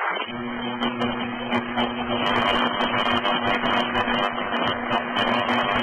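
Static and hiss on an air traffic control VHF radio frequency, with a steady low hum and a few clicks, a transmission open with no words spoken.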